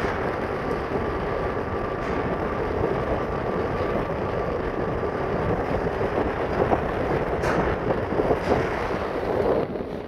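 Wind blowing across a phone's microphone: a loud, steady rushing noise that rises and falls in gusts, with a faint steady whistle through the first half. It eases off just before the end.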